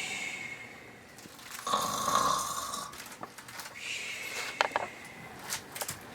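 A woman imitating a bear's snore: three drawn-out, breathy snores, the middle one the loudest. A few light clicks come near the end.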